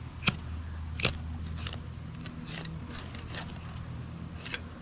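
Fillet knife working a bluegill fillet down along the rib cage toward the belly: scattered small clicks and crackles, about one a second, over a steady low hum.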